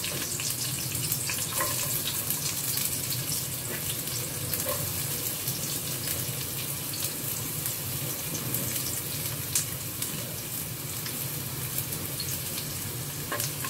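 Sliced shallots and garlic sizzling in hot oil in a wok: a steady frying hiss with a few short clicks.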